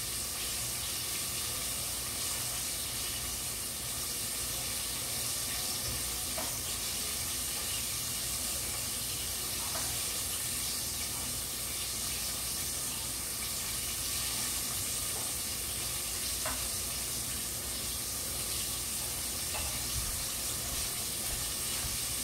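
Food frying in a pan on the stove: a steady sizzle, with a few faint clicks.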